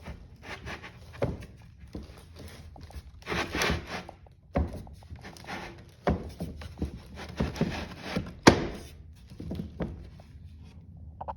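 Wooden cabinet side panels being slid onto their connecting posts and knocked into place: a run of irregular thunks and scraping, with the sharpest knock about three-quarters of the way through.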